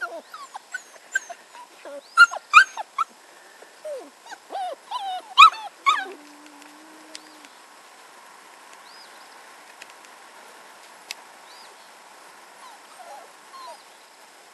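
Standard poodle puppies yipping and whimpering: a quick string of short, high, squeaky yips for the first six seconds, then only a few faint ones.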